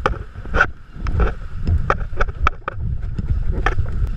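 Footsteps knocking and thudding up the dock stairs onto the deck, a string of irregular sharp knocks, over a low rumble of wind on the microphone.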